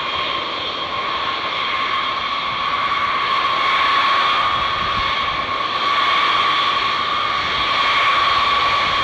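Pratt & Whitney TF33 turbofan engines of a B-52H Stratofortress at taxi power: a steady jet whine over a broad rushing noise, growing a little louder as the bomber taxis past.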